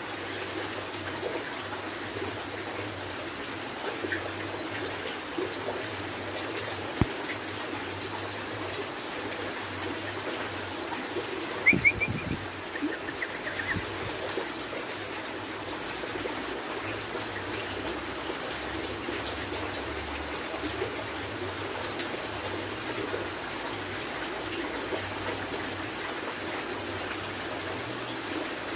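Young male yellow-vented bulbul calling: thin, high notes that fall in pitch, repeated every one to two seconds, with a short burst of chirps near the middle. Underneath runs a steady rush like running water.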